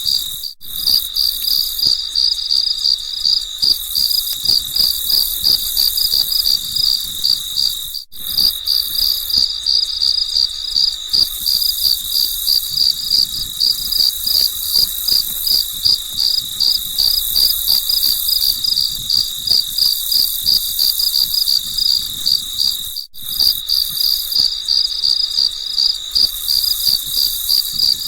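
Crickets chirping in a steady, rapid, high-pitched pulse, with a faint hiss of other insects above it. Three very short gaps break it.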